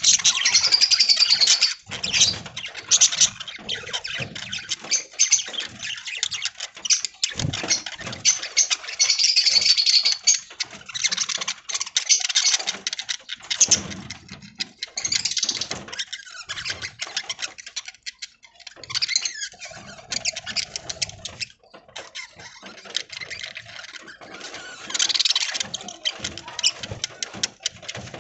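Budgies chirping and chattering in bursts, with many short clicks mixed in.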